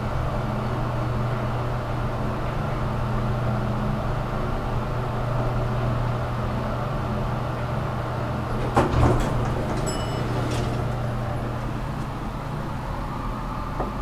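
OTIS traction elevator car running with a steady low hum, then a clunk about nine seconds in as it stops at the floor. A short high beep follows, and the car doors slide open.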